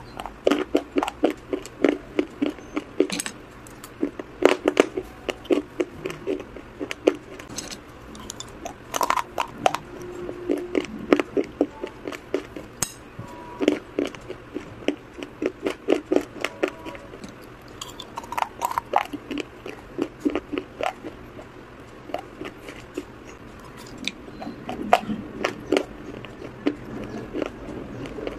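Close-up crunching and chewing of hard, brittle pieces of broken clay pot, in repeated runs of sharp crunches with short pauses, mixed with a metal spoon clinking and scraping on a ceramic plate.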